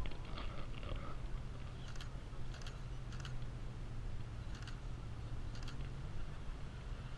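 Steady low hum with a few short, light clicks scattered through the middle, and faint voices in the first second.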